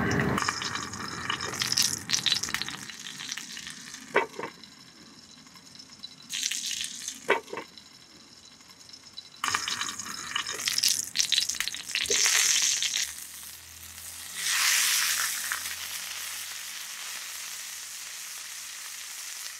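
Leaf-wrapped stuffed pomfret sizzling on a hot oiled iron pan, the hiss swelling and fading in several stretches, with a few sharp knocks from the clay lid being handled.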